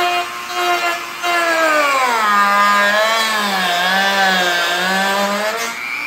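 Dremel rotary tool with a cut-off wheel cutting a plastic shim. Its whine drops in pitch and gets louder a little over a second in as the wheel bites into the plastic under load, then wavers at the lower pitch while cutting continues.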